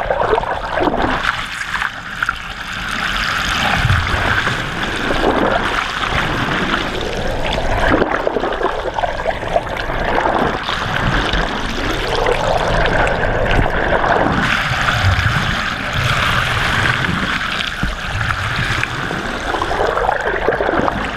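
Seawater rushing past a camera filming underwater, heard as a steady hiss with gurgling swells every few seconds.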